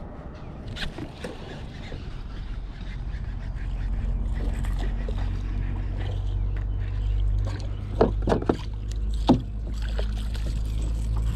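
Kayak on the water: a steady low rumble that swells about four seconds in, with a few sharp knocks around eight to nine seconds in.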